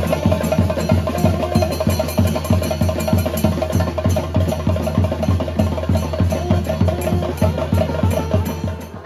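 Festival procession music: a fast, steady drum beat with a held, wavering melody line over it.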